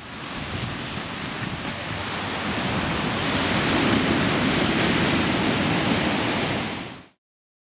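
Rough sea surf breaking on a shingle beach, with wind rushing over the microphone: a steady, loud rushing noise that builds a little towards the middle. It starts and cuts off abruptly.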